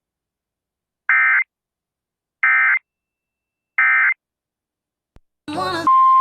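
Emergency Alert System end-of-message data code: three short, identical warbling two-tone digital bursts about 1.3 s apart, marking the end of a warning. About 5.5 s in, a brief burst of other sound is followed by the start of a steady single-pitch alert tone, which signals the next alert.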